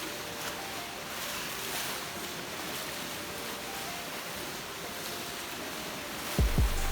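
Steady rush of surf and wind, with faint music notes underneath; a loud, bass-heavy music beat comes in near the end.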